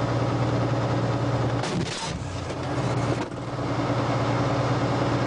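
T-72B tank's diesel engine running steadily, a low, even hum heard from inside the hull. A short rushing noise comes about two seconds in, and a brief one about a second later.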